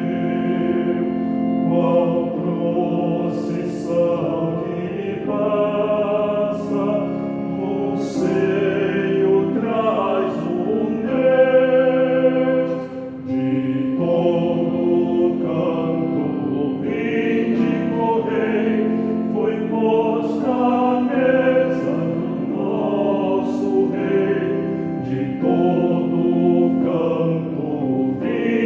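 Choir singing a Portuguese-language Catholic hymn, sustained notes moving in steady phrases.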